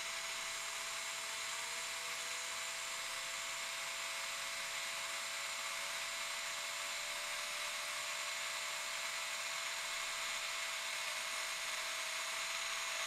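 Electric handheld blower running steadily, blowing on the free-spinning metal scroll wheel of a Logitech G502 gaming mouse. The wheel spins up with a faint whine that rises in pitch over the first few seconds and then holds steady under the blower's rush.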